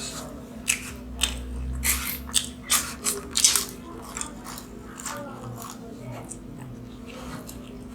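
Close-up eating sounds: biting into and crunching a fried Mughlai paratha, an egg-stuffed flatbread. A quick run of sharp crunches comes in the first few seconds, then softer chewing.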